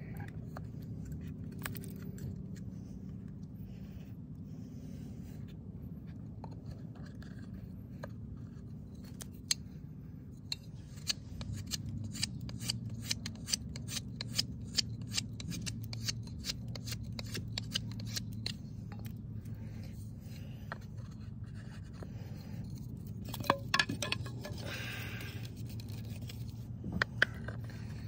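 Knife carving wood on a bow-drill set to cut a fresh divot in the hearth board and shape the spindle. It makes a run of small sharp clicks, two or three a second, with a short scraping stretch near the end, over a steady low hum.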